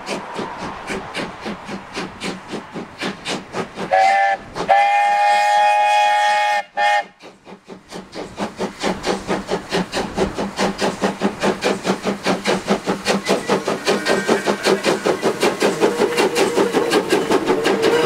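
Small narrow-gauge steam locomotive working a train: its exhaust chuffs in a fast, even beat, broken about four seconds in by a short toot and then a blast of about two seconds on its steam whistle. After the whistle the chuffing starts up again and grows louder as the train comes past.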